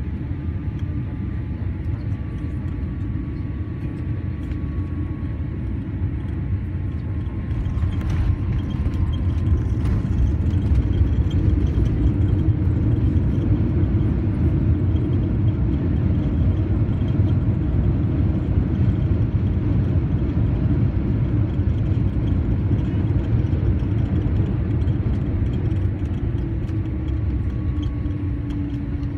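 Cabin noise of a Boeing 787 landing and rolling out on the runway: a steady deep rumble from the engines and the wheels, which grows louder about eight seconds in and eases a little near the end.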